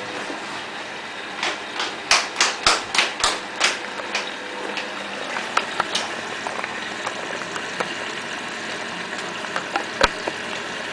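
A quick run of about eight sharp knocks, roughly three a second, then scattered lighter clicks and one sharp click near the end, over a steady hum.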